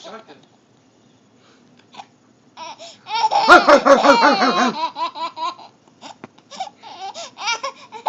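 A small child laughing and babbling in high-pitched bursts. The loudest burst comes about three and a half seconds in, after a near-quiet couple of seconds, with shorter bursts following.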